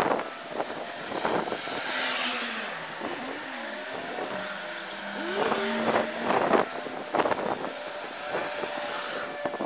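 Road traffic passing, with vehicle engine tones gliding up and down as cars go by, over a steady street noise.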